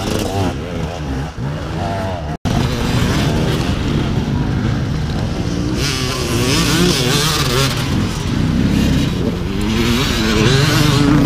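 Enduro dirt-bike engine running and revving, its pitch rising and falling with the throttle. There is a sudden, very short dropout about two and a half seconds in.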